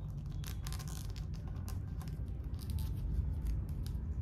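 Small sheet of origami paper being creased and folded between the fingers: a run of short, irregular paper rustles and crinkles over a steady low hum.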